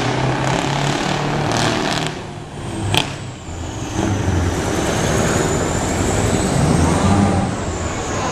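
Open-piped Scania V8 truck engine under power as the tractor unit drives past. It eases off about two seconds in, with a single sharp crack near three seconds, then pulls steadily again.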